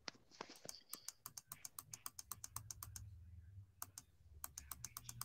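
Faint typing on a computer keyboard: a quick, uneven run of key clicks, a short pause about three and a half seconds in, then more keystrokes.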